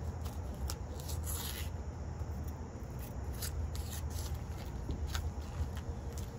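Kitchen scissors cutting through a plastic vacuum-sealed bacon package: several short snips and crinkles of the plastic, with one longer cut about a second in. A steady low rumble sits underneath.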